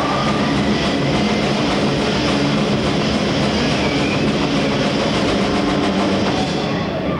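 Live heavy metal band playing loud and fast, with distorted guitars and bass over drums in a dense wall of sound. The music cuts off sharply near the end.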